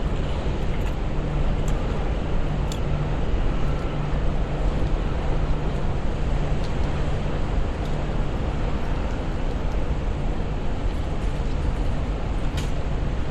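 Steady city street noise: a continuous traffic rumble with a constant low hum under it, and a couple of faint clicks.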